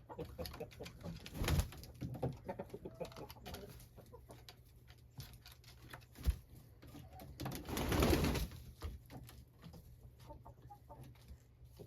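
Chickens in a coop making low cooing and clucking calls, with small scratching and tapping sounds. Twice a louder rustle, near the start and about two-thirds through, and one sharp knock about halfway.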